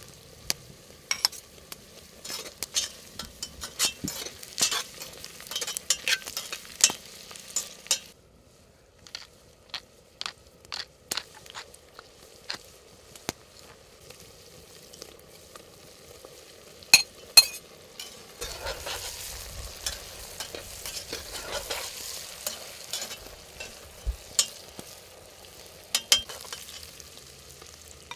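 Food sizzling and frying in a pan while being stirred, with a utensil clicking against the pan. The sizzle comes in two louder spells with a quieter stretch between them, and a few sharp clicks stand out.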